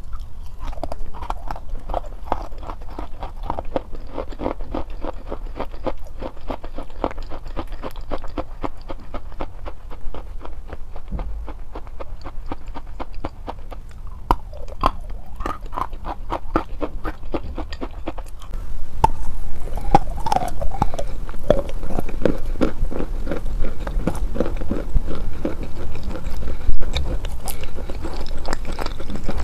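A person biting and chewing pressed chalk: a dense run of crisp crunches and grinding. About two-thirds of the way through, the crunching becomes louder and closer, as if right on the microphone.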